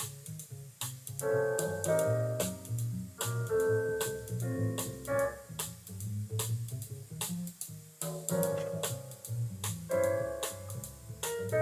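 Instrumental piano music with a bass line and light drums, played back from cassette tape on a Vector Research VCX-200 stereo cassette deck.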